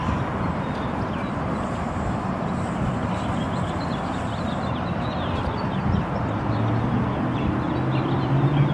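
Steady outdoor noise of road traffic, with many small bird chirps over it; a low steady hum sets in near the end.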